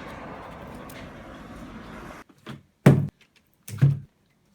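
A steady background hiss that cuts off suddenly about two seconds in, then two loud, short thuds about a second apart, like knocks or a door banging.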